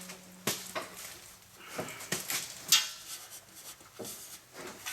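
Scattered clicks, taps and light knocks of hand work on the truck's parking brake, with some rustling in between and a few sharper knocks.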